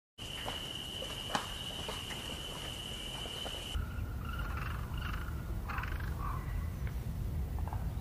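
Steady high-pitched drone of a singing insect with a few faint clicks. It cuts off abruptly a little under four seconds in and gives way to a low, even rumble with a few short wildlife calls over it.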